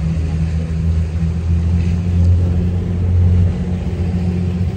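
Motorboat engine running under way at a steady drone, with a constant rushing hiss of wind across the boat.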